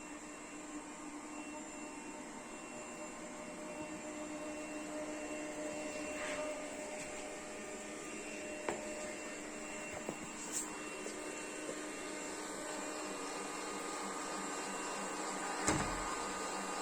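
Puppyoo R30 robot vacuum running: a steady motor whir with several steady tones, and a few light clicks. A louder low thump near the end.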